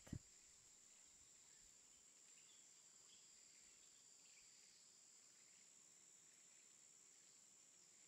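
Near silence: faint hiss with a steady, thin high-pitched whine.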